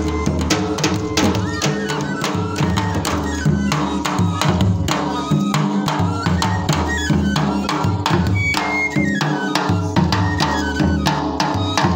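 Dhol and nagara drums beating a fast, dense folk-dance rhythm for the Churahi nati, with a high stepping melody line over the drums.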